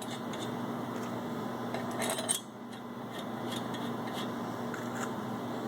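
Light metallic clinks and scrapes of bolts being handled and started by hand into a rotary vane compressor's aluminum faceplate, with a cluster of clinks about two seconds in.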